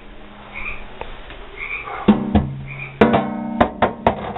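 Microwave oven being handled and set down: a few sharp knocks from about two seconds in, the later ones followed by a short hollow ringing.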